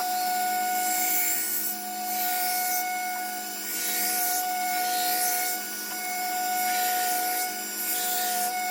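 Belt grinder running with a steady motor whine while a steel knife blade is ground against the belt, the grinding hiss swelling and fading with each pass of the blade, about every second or two.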